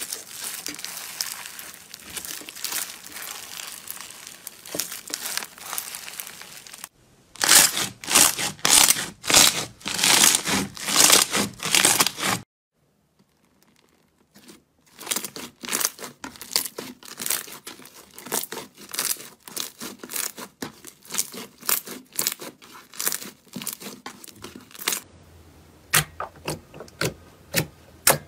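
Slime squeezed and kneaded by hand. First comes a dense crackling from foam-bead slime, then louder, separate crackles and pops for about five seconds. After a brief silence, glossy slime is pressed by hand with a run of small pops and clicks.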